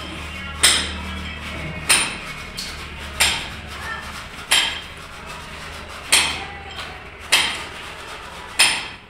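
A hammer striking in a slow, even rhythm: seven sharp, ringing blows, about one every 1.3 seconds.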